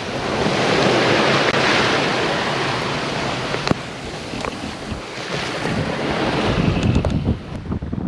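Sea water rushing and splashing in the wake of a sailing yacht under way at about six knots, with wind buffeting the microphone; one sharp click about three and a half seconds in.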